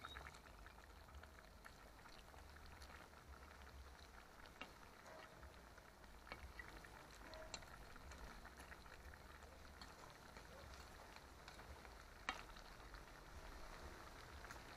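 Pot of fish stew in tomato gravy bubbling faintly over a charcoal fire, with a metal spoon stirring it and ticking against the pot now and then. One sharper click comes about twelve seconds in.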